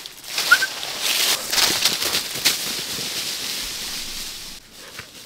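Dry leaf litter rustling and crackling as it is walked through, with a short high chirp about half a second in. The rustling stops shortly before the end.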